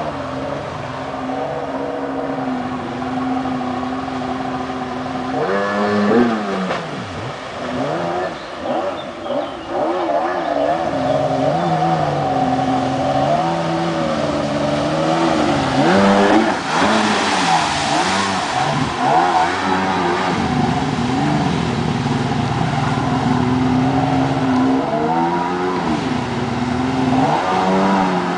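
Kawasaki 800 SX-R stand-up jet ski's two-stroke twin engine revving up and down over and over, with sharp climbs in pitch about six seconds in, around sixteen seconds and near the end. A burst of hiss comes just after the middle climb.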